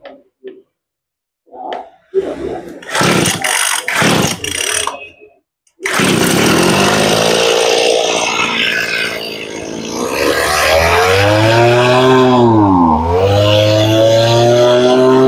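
Mitsubishi TL231 two-stroke brush-cutter engine being pull-started: a few starter pulls, then it catches about six seconds in and runs. About ten seconds in it speeds up, drops briefly near the thirteenth second, then runs fast and steady.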